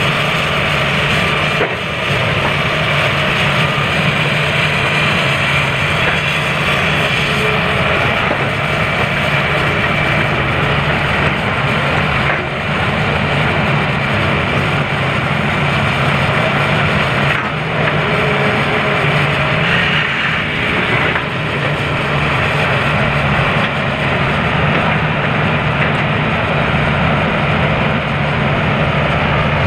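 Hitachi 310 crawler excavator's diesel engine running steadily under load while the machine digs and swings through broken rock.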